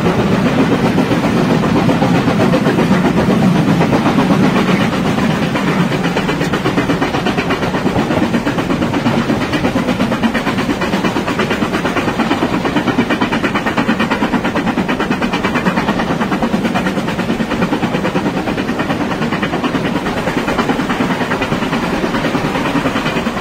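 LMS Stanier Class 5 4-6-0 steam locomotive No. 5305 running, its exhaust and train noise in a fast, even rhythm, a little louder for the first few seconds.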